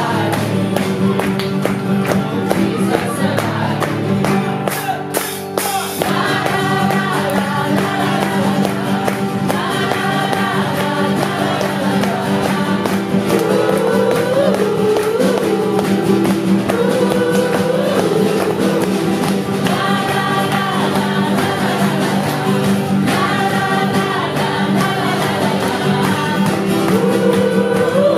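A live gospel-style worship song: a small choir of singers with microphones singing a melody over band accompaniment, with a brief drop in the music about five seconds in.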